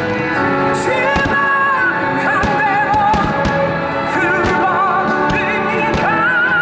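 Music with a singer holding long notes with vibrato, played loud for a fireworks show, with the sharp pops and bangs of fireworks bursting irregularly over it.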